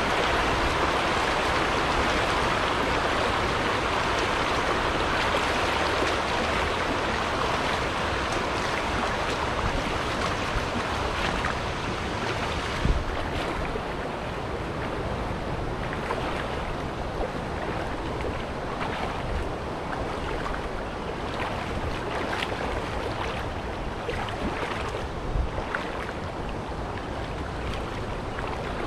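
Steady rush of shallow river water flowing over rocks, easing off a little after the first several seconds, with scattered splashes from wading through it in the second half.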